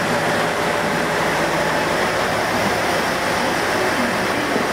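Aizu Railway AT-750 series diesel railcar standing at the platform, its idling engine and roof air-conditioning units giving a loud, steady running noise with a faint low hum.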